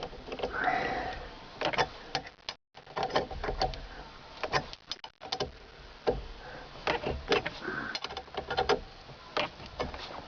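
Steering wheel puller being worked with hand tools on a Saturn's steering wheel, drawing the wheel off its shaft. Irregular sharp metallic clicks and knocks, with a couple of short squeaks.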